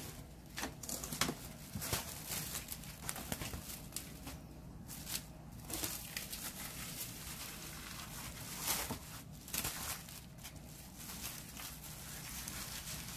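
Plastic cling film (Kirkland Stretch-tite food wrap) crinkling in irregular crackles as it is pulled off the roll and pressed around a ball of dough by hand.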